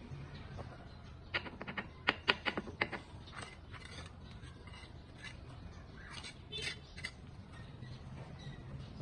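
Steel brick trowel clinking and scraping against a mortar bucket as mortar is scooped up: a quick run of sharp clicks a little over a second in, then scattered fainter scrapes and clicks.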